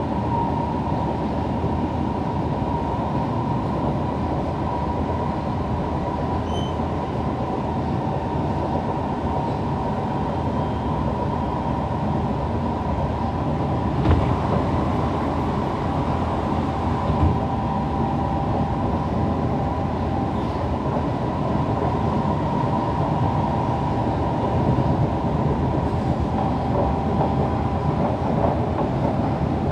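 Siemens C651 MRT train running, heard from inside the carriage: a steady rumble with a constant whine. Two short knocks come about halfway through.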